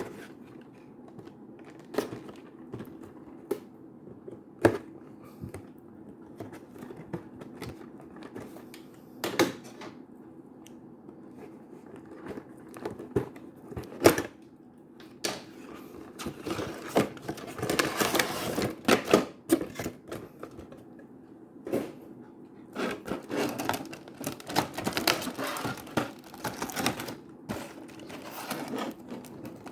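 Figure packaging being handled and opened: scattered sharp clicks and taps of cardboard and plastic, then longer stretches of crinkling and rustling plastic wrap, mostly in the second half.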